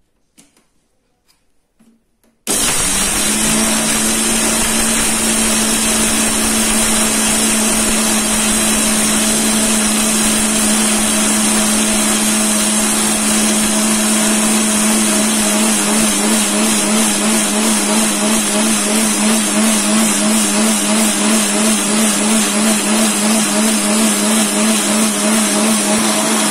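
Butterfly mixer grinder switched on about two and a half seconds in and running at full speed, grinding dried drumstick (moringa) leaves and spices to powder in its steel jar. A loud, steady motor hum with a high whine, which wavers in an even pulse through the second half.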